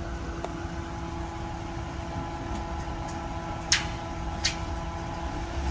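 Steady mechanical hum holding a few constant tones, broken by two short sharp clicks a little after the middle.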